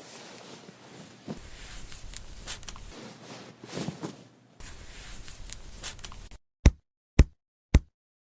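Soft rustling and small clicks of hands working in hair during a salon shampoo, then, from about six seconds in, sharp knocks roughly twice a second with silence between them.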